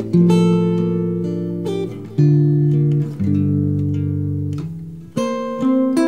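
Background music: a guitar playing slow chords, four struck in turn and each left to ring and fade.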